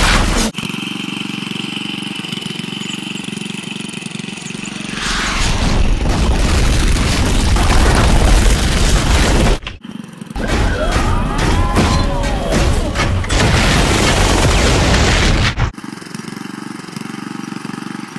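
Tractor engine running steadily, twice drowned out by a long, loud explosion sound effect that cuts off abruptly; a rising-and-falling whistle runs through the second blast. The engine is heard again near the end.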